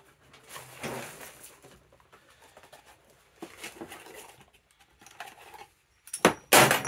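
Hands moving tools and parts about on a workbench, with soft scrapes and knocks. Near the end comes a loud metallic clatter with a brief high ring, as metal tools are picked up and knocked together.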